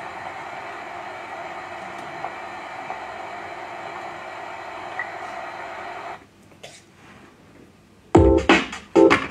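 Sound score for a dance performance. A steady rushing noise cuts off suddenly about six seconds in, and after a short quieter pause, loud electronic music stabs start near the end, each beginning and stopping sharply.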